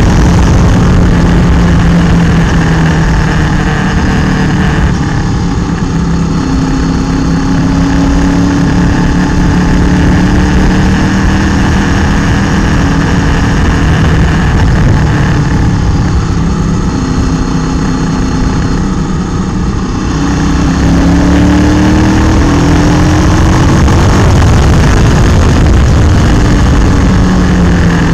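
Motorcycle engine running under way, heard from a camera mounted on the bike, with steady wind and road noise. Its pitch rises and falls with the throttle, climbing noticeably about 21 seconds in.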